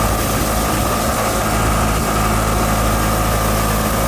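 Murray riding lawn tractor's engine running steadily as the tractor drives along the road, with a steady whine over the engine.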